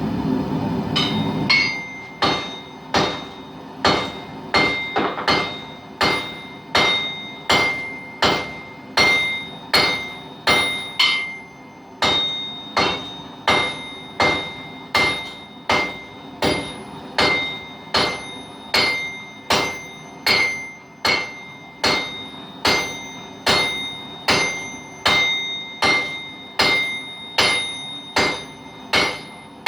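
Blacksmith's hammer striking steel on an anvil in a steady rhythm, about one and a half blows a second, the anvil ringing after many of the blows. A steady rumbling noise stops about a second in, just before the hammering starts.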